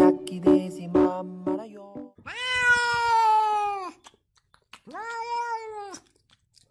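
Pop music with a steady beat for about two seconds, then a grey-and-white cat meowing twice: one long meow, then a shorter one.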